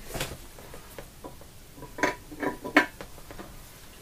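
Soldering iron being lifted out of its metal stand, clattering against the holder: a light knock just after the start, then three sharper clinks about two to three seconds in, the last the loudest.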